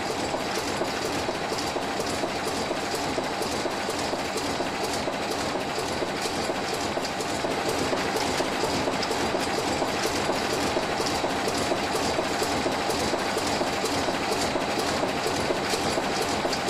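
Pencil-stamping machine running, feeding wooden pencils from a hopper and stamping their lettering, with a steady, rapid mechanical clatter that grows slightly louder about halfway through.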